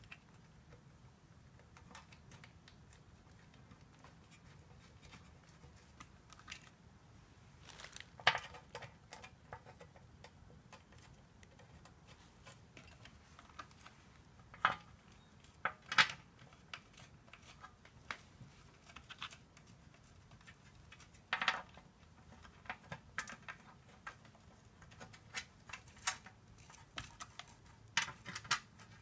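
Scattered sharp metallic clicks and taps from steel bolts being picked up and started by hand into a 42RE transmission's oil pan and its reusable gasket.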